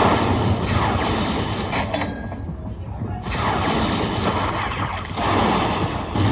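Tiki Fire Lightning Link slot machine sound effects during a Hold & Spin bonus: two loud spells of dense electronic effects with falling sweeps, broken by a short lull about two to three seconds in.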